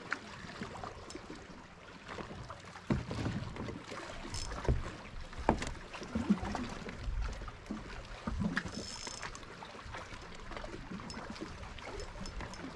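Small water sounds against a plastic fishing kayak's hull, with wind on the microphone and scattered small clicks and knocks from rod, reel and kayak gear being handled, a few louder bumps between about three and eight seconds in.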